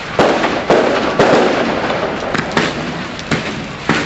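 Fireworks display: a quick run of about seven loud bangs in four seconds, each followed by a short rumbling echo.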